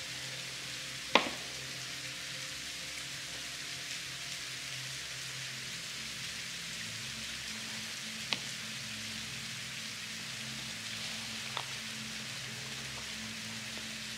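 Steady hiss with a few sharp taps of playing cards being put down on a table, the loudest about a second in and three fainter ones later.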